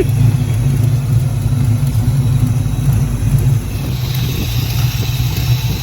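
A car engine idling steadily with a low, even note. A hiss joins it about four seconds in.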